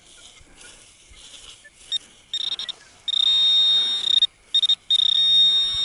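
High-pitched electronic beeping from a metal detector homing in on a target in freshly dug sand. There are two short chirps about two seconds in, then a long steady tone, two quick beeps, and another long tone near the end.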